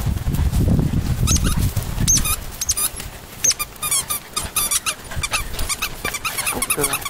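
Squeaky dog toy squeaked again and again as puppies jump and tug at it, the squeaks coming in quick runs in the second half. A low rustling noise fills the first two seconds.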